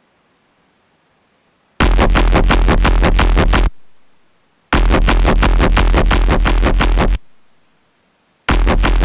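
Heavily distorted synth bass from Serum, run through the Mishby distortion plugin, played in three loud bursts of a couple of seconds each. Each burst has a fast, even pulsing of about seven pulses a second over a deep low end, and the first two fade out in short tails.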